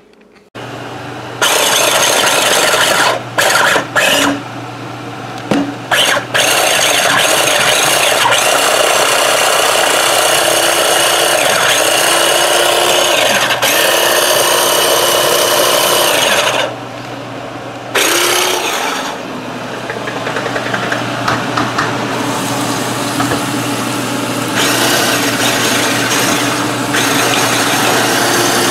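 Food processor motor running loudly in several long runs, with a steady hum beneath. It cuts out briefly a few times and starts up again.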